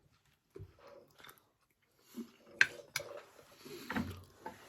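Chewing and eating noises at a meal, with two sharp clicks a moment apart near the middle.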